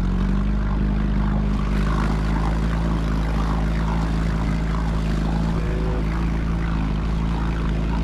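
Outboard motor running steadily at trolling speed, heard from aboard the inflatable boat it drives: an even, unchanging engine hum.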